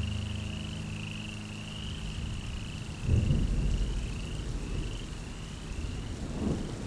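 Night-time ambience: a high chirping call, probably frogs, repeated about twice a second. Under it is a low, steady droning hum that stops about two and a half seconds in, then a low rumble about three seconds in.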